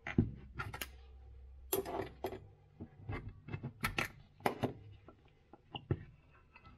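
Irregular sharp metal clicks and clinks as an aluminium soft-plastic lure injection mold is taken apart by hand with tools, about a dozen knocks spread across the time.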